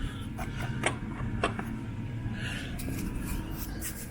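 Small metal hardware being handled: a few light clicks and knocks in the first second and a half, then rustling and scraping from about two seconds in, over a steady low hum.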